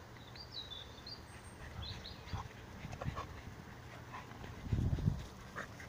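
Two pit bull–type dogs playing tug-of-war over a toy: quiet panting and scuffling, with a short low rumble about five seconds in.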